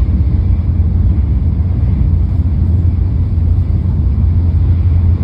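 Interior running noise of a Shinkansen bullet train at speed: a steady, loud low rumble heard from inside the passenger car.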